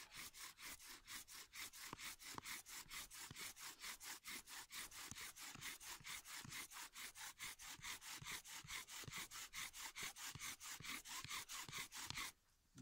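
Bow drill at work: a wooden spindle spun back and forth in a fireboard by a cord bow, a fast, even rhythm of dry rubbing strokes that stops just before the end. The spindle is burning in its socket in the board, the first step toward a friction ember.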